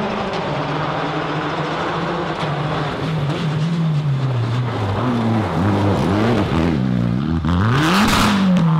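Citroën DS3 rally car's engine running hard on a gravel stage, its pitch sweeping up and down several times in quick succession as the driver works the throttle. Near the end a loud rushing noise rises over it as the car goes off the road into the bushes.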